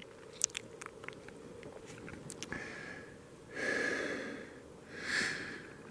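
A man breathing heavily, with a long breath about three and a half seconds in and a shorter one about five seconds in, after a few faint clicks.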